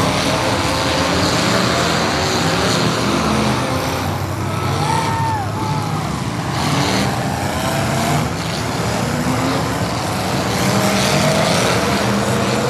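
Several full-size derby cars' engines running hard and revving as they race round a figure-8 track, their pitch rising and falling over and over.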